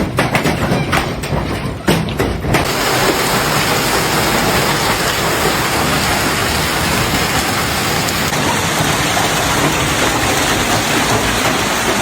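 Hail and rain coming down hard in a hailstorm: separate sharp strikes for the first two and a half seconds, then a dense, even, loud wash of falling hail and rain.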